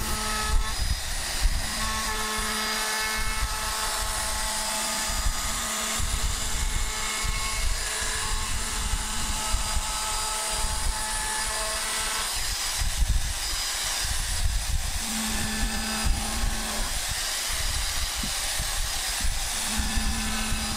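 Compact trim router running steadily, its bit cutting into an end-grain hardwood cutting board, with the motor's whine shifting a little as the cut loads it.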